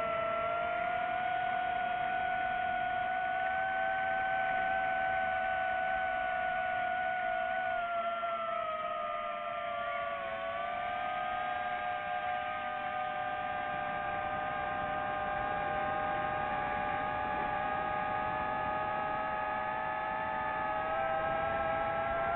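DJI FPV drone's motors and propellers whining steadily. The pitch sags about eight to ten seconds in, then climbs again as the throttle changes.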